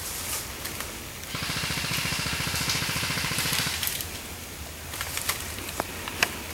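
Electric airsoft rifle firing a full-automatic burst, a fast even buzz of roughly twenty shots a second lasting about two and a half seconds, followed by a few sharp separate clicks near the end.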